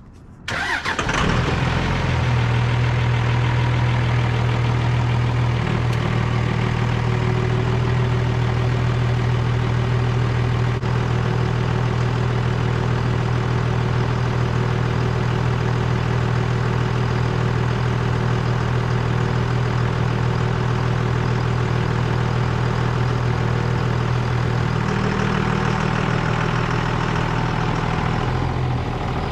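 An engine starts about half a second in and then idles steadily with a low hum, its pitch shifting slightly a few times.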